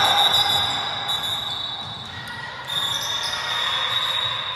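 Basketball game play on an indoor court: the ball bouncing and sneakers squeaking, with high squeals that come and go.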